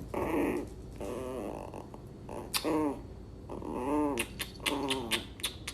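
A dog vocalizing in short calls that rise and fall in pitch, three of them in the second half, with a few light clicks between them.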